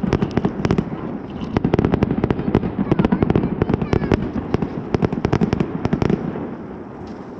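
Fireworks display: a rapid, dense run of sharp bangs and crackles that stops about six seconds in.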